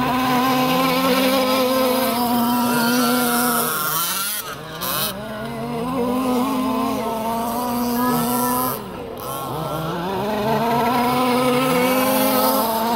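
Small two-stroke engines of large radio-controlled buggies running at high revs on gravel, the pitch climbing in steps, holding high, then dropping off twice, about 4 and 9 seconds in, before climbing again.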